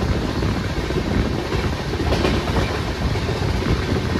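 Passenger train running at speed, heard from on board: a steady rumble of the coach with the clatter of wheels over the track.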